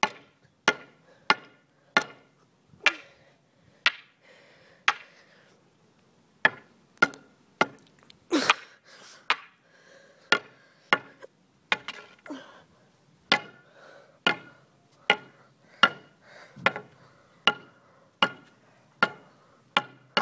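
A wooden pole striking a hard surface again and again, about thirty sharp whacks at an uneven one or two a second, each with a short ring. There is a short pause a few seconds in, and one longer, louder hit near the middle.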